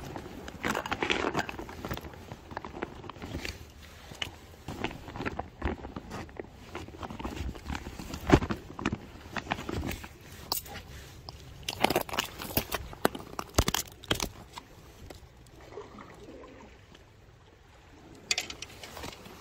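Close handling noise of fishing gear and a nylon bag: rustling with irregular clicks and knocks. The sharpest knock comes about eight seconds in, and a cluster of louder ones comes around twelve to fourteen seconds.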